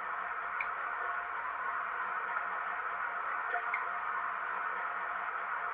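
Recorded Class 05 diesel shunter engine sound played by a model locomotive's DCC sound decoder, running steadily through a small loudspeaker that gives it a thin, bass-less sound, with a few faint ticks.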